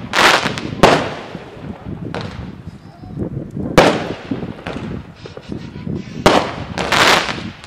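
Consumer fireworks battery firing aerial shots: a string of sharp bangs at uneven gaps of about one to two seconds as the shells burst overhead, some trailing off in a longer hiss.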